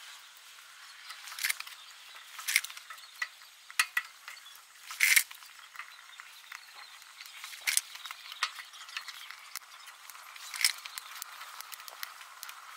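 Sticks of scrap-wood kindling clacking against each other and the metal firebox as they are stacked over a burning firelighter, in a series of sharp knocks with the loudest about five seconds in. Between the knocks comes a light crackle of the kindling catching fire.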